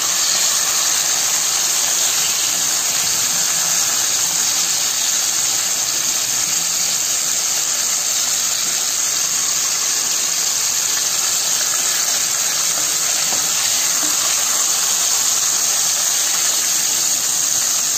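Small whole brinjals (baby eggplants) frying in hot oil in a pan, a steady sizzle with no change.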